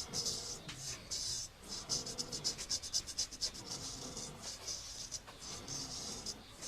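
Straight razor scraping over stubble in quick short strokes, several a second through the middle, a dry rasping shave.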